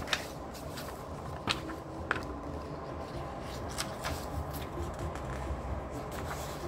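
Paper pages of a thin instruction booklet turned by hand: a handful of short, crisp paper flicks and rustles.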